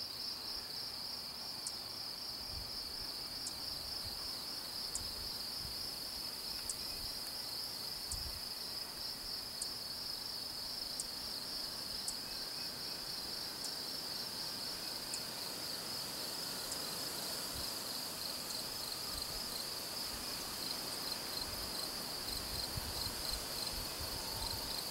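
A chorus of insects trilling steadily at a high pitch, with a faint higher tick repeating about every second and a half until about two-thirds of the way through.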